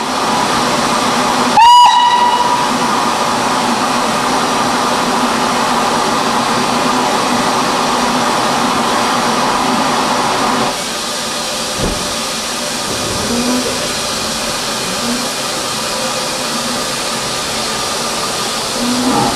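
Steam locomotive gives one short whistle about two seconds in, over a steady hiss of steam as it pulls the train away. The hiss drops somewhat about halfway through.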